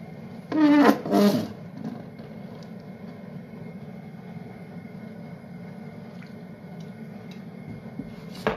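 A long-handled metal ladle scraping ground pork out of a stainless steel pan: two loud scrapes about half a second in, then quieter scraping and a sharp knock near the end, over a steady low hum.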